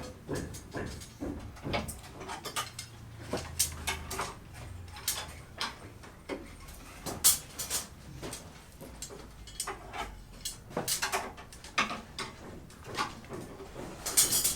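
Irregular clinks and knocks of hard objects being handled, several a second at times, with no steady rhythm.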